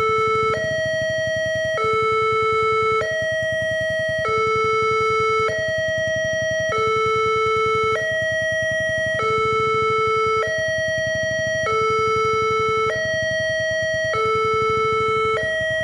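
Railway level-crossing warning alarm sounding for an approaching train: an electronic two-tone signal switching back and forth between a higher and a lower tone, each held a little over a second, over a low rumble.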